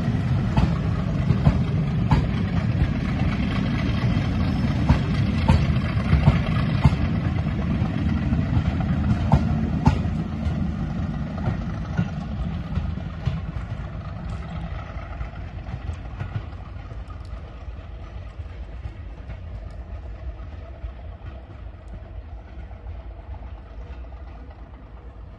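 Heritage diesel locomotive running with a heavy low rumble and occasional sharp clicks. The sound dies away steadily over the second half.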